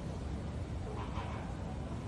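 Shoebill stork clattering its bill, upper and lower mandibles snapping together in a rapid, machine-gun-like rattle as a display call.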